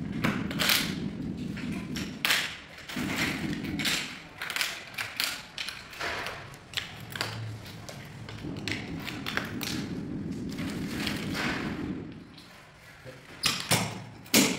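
Plastic tile-leveling wedges being pushed into leveling clips between large porcelain floor tiles: a run of short, irregular clicks and knocks, with two louder knocks near the end. A low rubbing noise comes and goes in two stretches.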